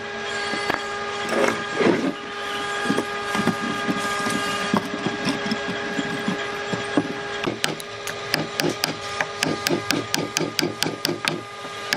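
Wood being worked with a motor-driven tool, its motor giving a steady whine under rough, scraping wood noise. About seven and a half seconds in, a rapid series of sharp taps begins, about four a second.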